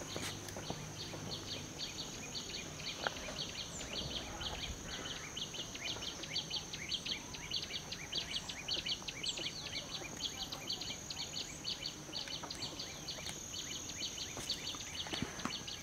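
Insects calling: a steady high-pitched drone with a rapid, even chirping over it, about four to five chirps a second.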